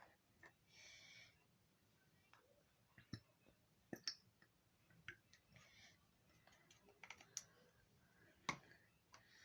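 Faint, scattered clicks and light knocks of a plastic glue bottle and measuring cup being handled as glue is measured out, with a couple of soft rustles.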